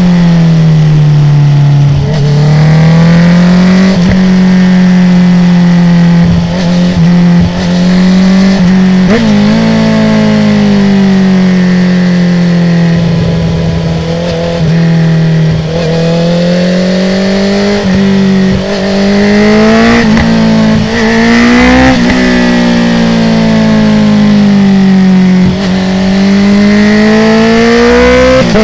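2019 Honda CB650R's inline-four, through an Akrapovic full titanium exhaust with the dB killer out, revving up and down through a run of bends. Quickshifter gear changes show as brief breaks every few seconds, and there are crackles on the overrun.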